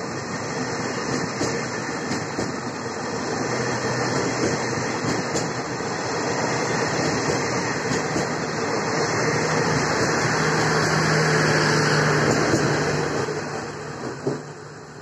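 Passenger coaches of a departing express train rolling past close by, with steady wheel-on-rail noise. It grows louder with a low hum, then fades quickly near the end as the last car passes and pulls away.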